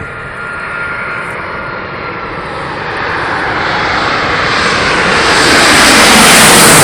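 Airplane approaching low overhead, its engine roar growing steadily louder, with a whine that begins to drop in pitch near the end as it passes.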